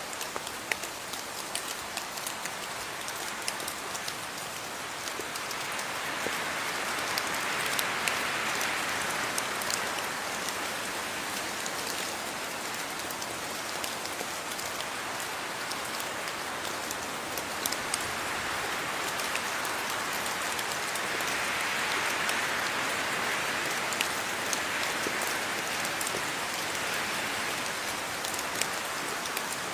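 Steady rain falling on a surface, an even hiss with many small distinct drop ticks, swelling slightly a few times.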